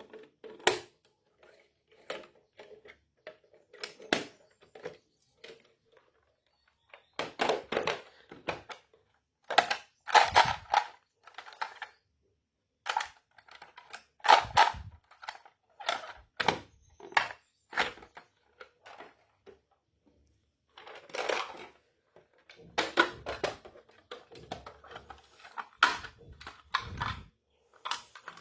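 Small miniature toy kitchen pieces being handled and set down: irregular sharp clicks and clacks with short scraping rustles between them, in clusters with brief pauses.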